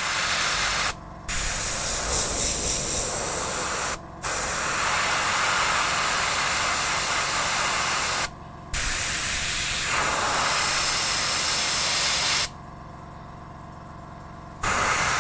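Airbrush spraying thinned paint in long, steady passes of spray noise, with short stops about a second in, at about four seconds and at about eight and a half seconds, and a longer pause near the end.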